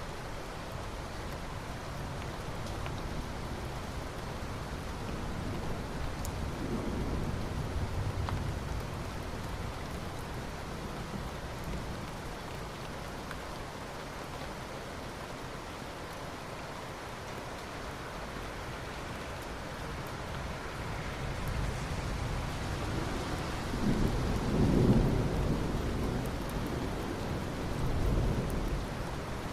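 Steady rainfall with thunder rumbling twice: a low roll about a quarter of the way in, and a louder, longer one in the last third.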